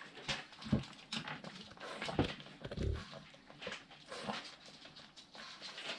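Small dogs whimpering in short, separate bursts, with snuffling and soft rustling of blankets in between, while a miniature pinscher and a pug are stuck in a mating tie.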